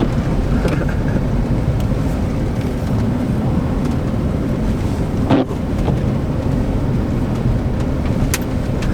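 Car driving with a steady low rumble of engine and road noise, with wind buffeting the microphone. A sharp knock comes about five seconds in.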